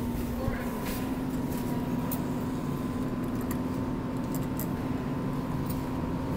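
Claw crane machine running as its claw is worked: a steady electrical hum and whir with a few faint light clicks.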